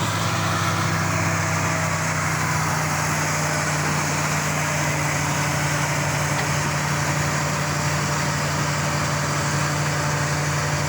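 An engine running steadily at a constant speed, with a low, even hum and no revving.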